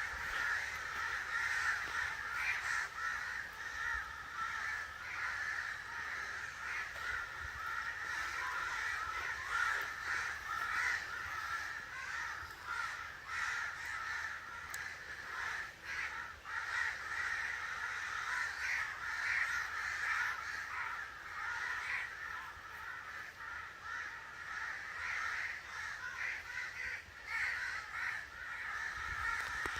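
A flock of crows cawing continuously, many harsh calls overlapping with no pause.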